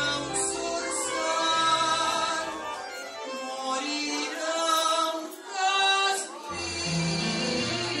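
A woman singing a tango vals, accompanied by bandoneón and keyboard; the low bass notes drop out from about two seconds in and return near the end.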